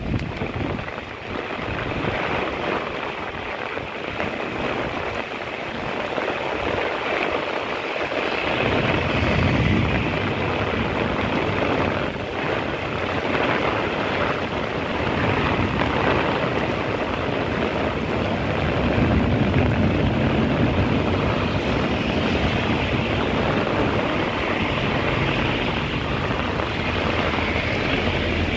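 Heavy tropical downpour pouring steadily, with wind gusting through trees. A low rumble joins in about eight seconds in.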